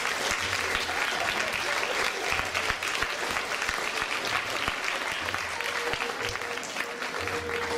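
Theatre audience applauding. About six seconds in, music starts under the applause.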